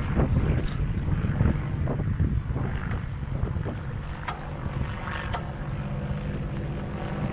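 A steady engine drone with wind buffeting the microphone, and a few sharp knocks scattered through it.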